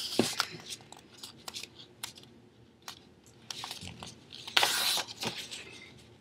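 Sheet of printer paper being folded and creased by hand: scattered crinkles and taps, with a longer rustling sweep a little under five seconds in as the fold is pressed down.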